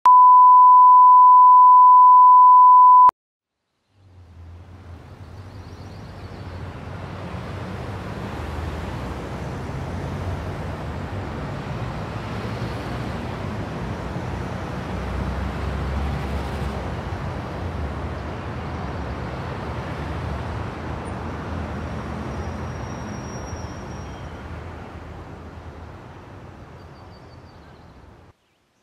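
A loud, steady electronic beep at one pitch for about three seconds, cut off abruptly. After a moment of silence, road traffic fades in: cars driving along a street with a steady low rumble of engines and tyres, which fades out near the end.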